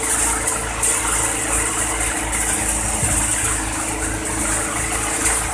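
Annapurna tokri-model thresher running steadily while dried chickpea plants are fed into it: an even mechanical drone with a strong high hiss.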